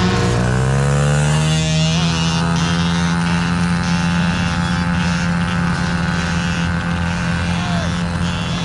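A pack of mini dirt bikes' small engines revving hard as they pull away together, the pitch rising over the first second or so, then running on at high revs and slowly fading as the bikes ride off.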